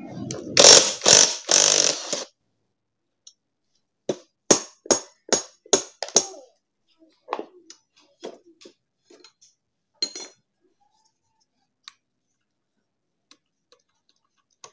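Motorcycle rear wheel, axle and swing arm being handled and fitted together: a scraping rustle for about two seconds, then a quick run of about six sharp metal knocks, followed by scattered lighter clicks.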